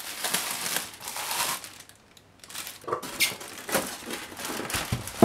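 Plastic packaging film crinkling and rustling as it is handled, with a short pause about two seconds in and a sharp knock at the very end.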